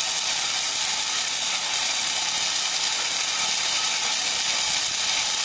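Small corn puffing machine, a screw extruder driven by an electric motor, running steadily while it extrudes puffed corn. It makes an even, hissing mechanical running noise with no clear rhythm.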